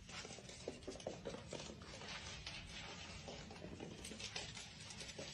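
A cat's paws pattering lightly and quickly on a wooden floor, with faint rustling.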